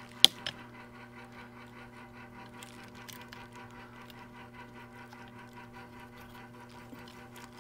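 Gloved fingers working the flat ribbon cables into their connectors on the display's circuit board: one sharp click about a quarter second in and a lighter one just after, then faint scratching and handling. A steady low hum runs underneath.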